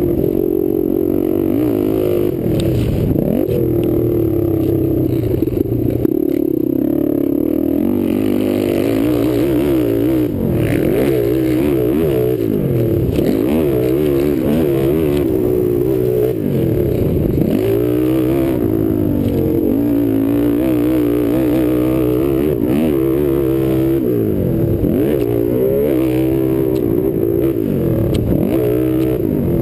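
Kawasaki sport quad's engine revving hard under full throttle. Its pitch climbs and falls over and over, with sharp drops every few seconds as the throttle is chopped or a gear is shifted.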